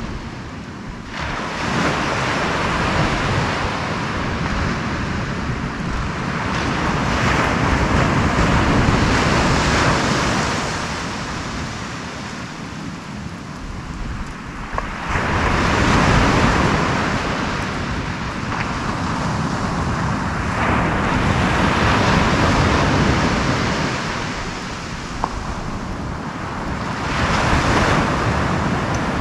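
Small surf breaking on the beach, swelling and falling away about every six seconds, with wind rumbling on the microphone.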